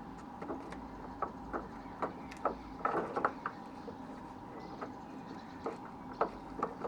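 Light clicks and knocks of headlamp parts being handled and fitted back into place, irregular, with a quick cluster about three seconds in.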